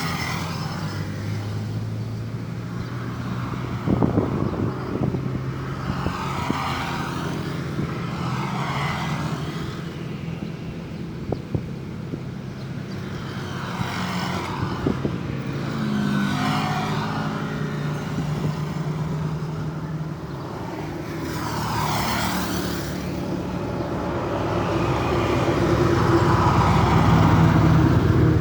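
Road traffic: vehicles passing one after another every few seconds, engines running, with a louder vehicle approaching near the end.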